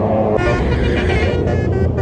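Bus engine rumbling by, joined about half a second in by a basuri (telolet) musical horn that plays a quick melody of short stepping notes.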